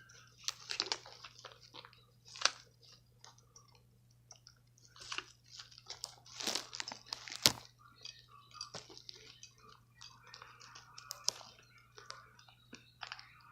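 Scattered clicks, taps and rustling from handling a small battery LED tap light and multimeter test probes, with a sharp click about two and a half seconds in and a louder one about seven and a half seconds in. A low steady hum runs underneath.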